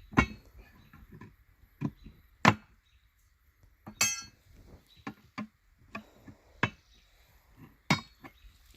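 Metal tools and parts clanking and clinking at irregular intervals, with one ringing metallic clink about four seconds in.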